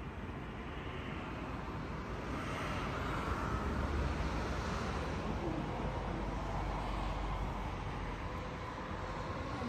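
Steady low rumbling background noise, growing a little louder a few seconds in.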